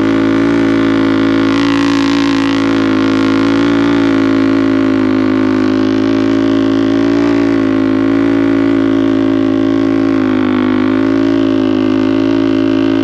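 A small engine running at a steady speed: a continuous drone that wavers slightly in pitch.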